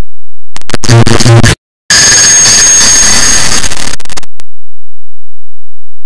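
A clock-ticking sound multiplied to an absurd count, so heavily layered and distorted that it has become harsh, clipped digital noise. A short loud burst cuts out for a moment, then comes back as about two and a half seconds of harsh hiss with steady whistling tones, and stops abruptly.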